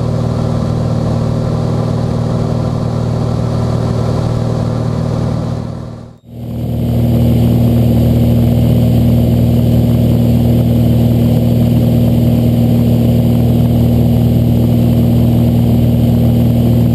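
Steady drone of a Cessna 182's piston engine and propeller in cruise flight. It dips out and back about six seconds in, at a cut between cameras.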